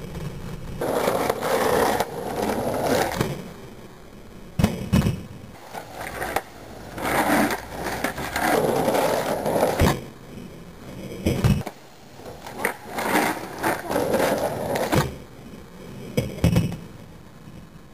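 Skateboard wheels rolling on rough asphalt in three runs, each followed by sharp wooden clacks of the board's tail popping and landing as flip tricks are tried.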